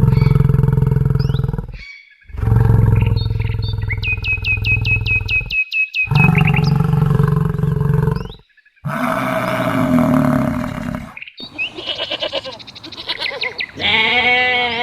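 A string of short animal-call clips cut together: deep, drawn-out roar-like calls, each segment breaking off abruptly, with a run of quick high chirps over one of them about four seconds in.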